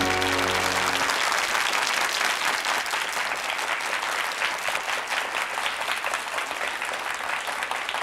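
Theme music ends about a second in, then a studio audience applauds.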